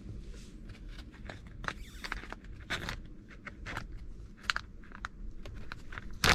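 Crinkling and tearing of a foil-laminate MRE meal pouch being handled and torn open at its tear notch: irregular crackles and rustles, with a sharp snap near the end.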